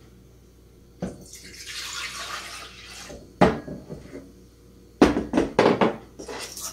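Almond milk pouring from a glass measuring jug into a plastic blender jar for about two seconds, then several sharp knocks as the jug and jar are handled and set down on the countertop.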